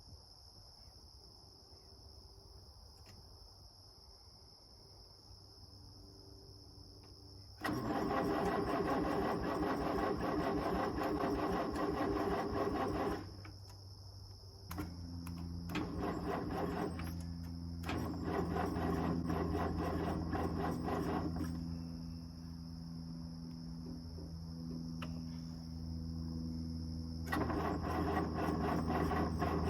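Crickets chirp steadily. About eight seconds in, a 1950s micro bulldozer's engine cuts in loudly, running hard with a rapid clatter. It eases off briefly a few seconds later, keeps running, and grows louder again near the end.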